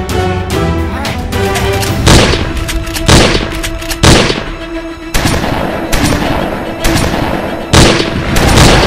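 Action-film soundtrack: dramatic music with loud gunshot-like booms about once a second, seven in all.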